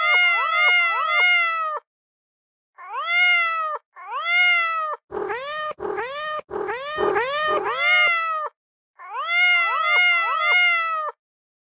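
A cat meow sound effect repeated quickly in a steady rhythm, about three short meows a second, in runs broken by brief silences. The run from about five to eight seconds in is harsher and noisier than the others.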